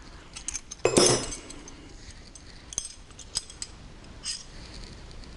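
Steel hand wrenches clinking and clanking against each other as they are handled and sorted, with scattered light clinks and one louder clank about a second in.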